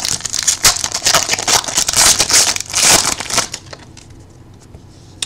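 Crinkling and crackling of a foil trading-card pack wrapper being handled and torn open, dense for about three and a half seconds, then quieter, with a single click near the end.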